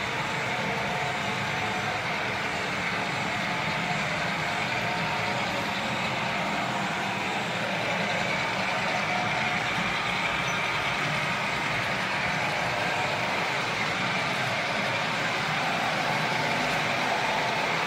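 OO gauge model trains running on the layout: a steady hum and rumble of the locomotives' motors and wheels on the track, getting slightly louder in the second half.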